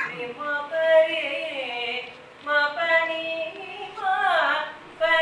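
A woman singing a slow melody in three phrases, holding long notes and sliding between pitches, with short breaks between the phrases.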